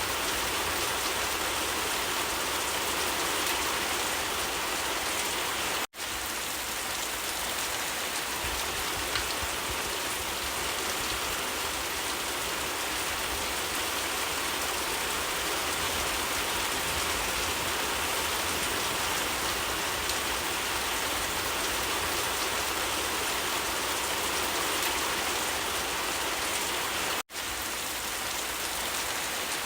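Steady rain falling, broken by two momentary dropouts, about six seconds in and again near the end.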